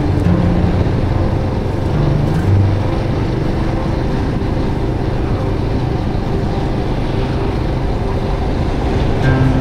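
Motorbike running steadily on the road, with engine, wind and tyre noise.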